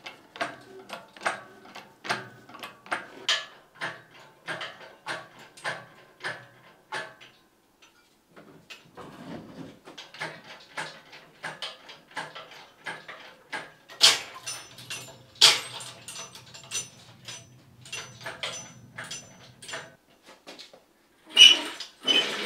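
A shop engine crane hoisting a car engine: regular metallic clicks, about two and a half a second, for the first several seconds. Then come scattered knocks and clanks, and near the end a louder rattling as the loaded crane is rolled across the floor.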